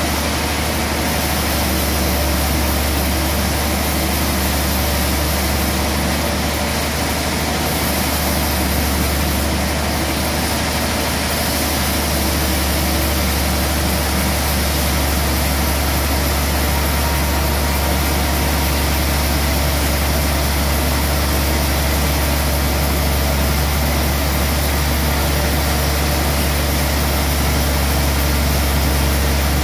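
Large log band sawmill running steadily, a constant loud low hum with mechanical noise over it.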